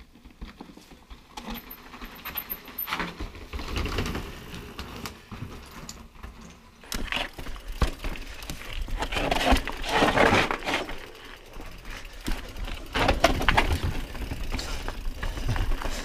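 Mountain bike rolling over a rocky, gravelly trail, heard from a handlebar-mounted camera. The tyres crunch over stones and the bike rattles and clicks with each bump. The noise swells loudest about seven to ten seconds in and again near thirteen seconds.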